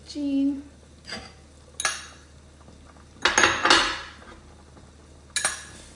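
A utensil clattering against a cooking pot as chunks of aubergine are added to the simmering curry: several separate clatters, the longest and loudest a little past the middle.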